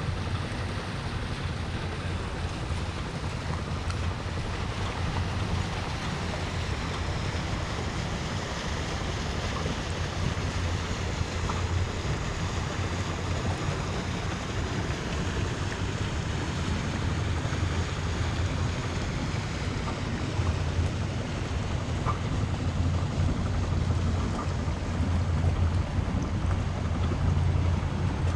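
Wind buffeting the microphone in a steady, fluctuating rumble, over the wash of water along a sailboat's hull while under sail.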